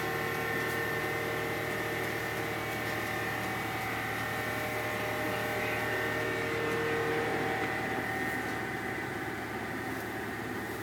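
Heavy machinery engine running steadily, with a hum of several steady tones that shift a little in pitch about seven seconds in.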